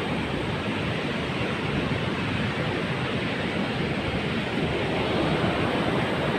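Heavy ocean surf rushing and washing in a steady roar, getting slightly louder near the end.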